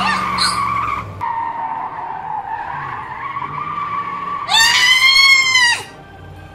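Toy RC car's electric motor whining steadily as it drives over gravel, then a loud tire screech about four and a half seconds in, lasting just over a second and dropping in pitch as it ends.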